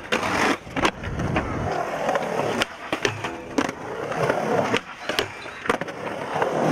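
Skateboard wheels rolling on smooth concrete, broken by several sharp clacks of the board popping and landing.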